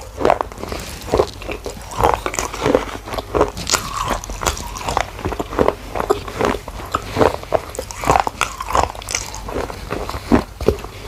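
Close-miked bites and chewing crunches of a small red fired-clay gullak (clay money bank), irregular crisp crunches about two a second.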